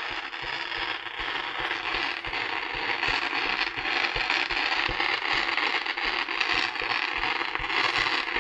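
Ground fountain firework spraying sparks: a steady, dense hiss with fine crackling, a little louder from about three seconds in.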